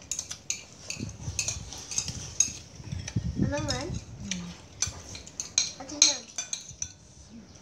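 Metal spoons clinking and scraping against ceramic plates and bowls as several people eat, in many short irregular clicks. A brief wavering voice is heard a little past the middle.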